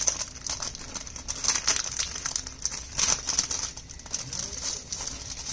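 Clear plastic bag holding an instruction manual crinkling as it is handled, in irregular crackles that are loudest about a second and a half and about three seconds in.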